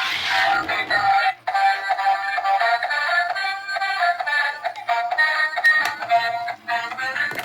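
Electronic music with a synthetic-sounding singing voice, a run of short, bright repeating notes, with a brief rushing noise right at the start.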